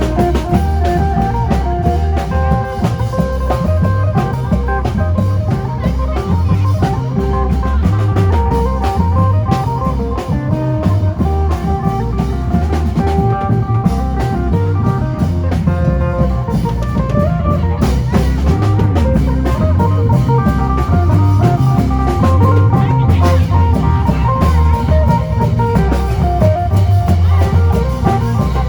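Isan band music: a phin (Isan lute) picking a quick melody over a drum kit and bass keeping a steady lam phloen dance beat.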